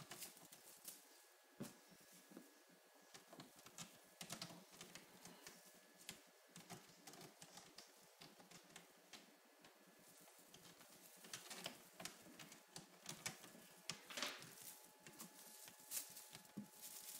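Himalayan kittens playing with a crumpled foil ball: faint, irregular crinkling and clicking as it is batted and mouthed, busier in the second half.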